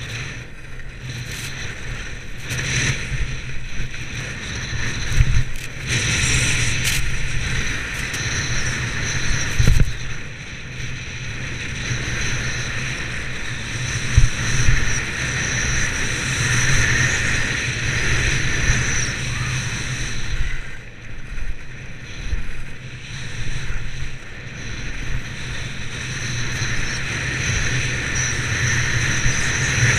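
Wind rushing over the microphone of a skier's action camera during a fast downhill run, mixed with skis scraping over hard-packed snow. Several brief sharp knocks come through, about 5, 7, 10 and 14 seconds in.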